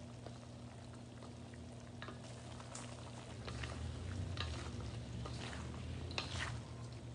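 Two wooden spatulas stirring and tossing chicken stir-fry in a steel wok, scraping and knocking against the pan over the frying sizzle. The scrapes become frequent about two seconds in, over a steady low hum.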